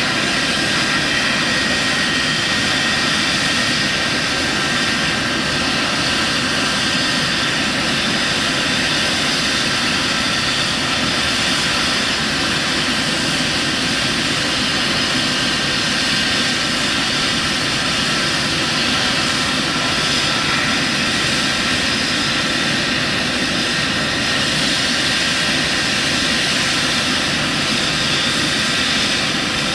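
Eurocopter EC135 helicopter running on the ground: its twin turbine engines and turning main and Fenestron tail rotors make a steady rush with a high, even whine on top. No change in pitch or loudness: it is holding at ground run before takeoff.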